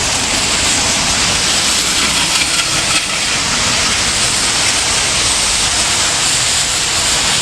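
Heavy, wind-driven rain pouring down, a loud steady hiss, with wind rumbling on the microphone.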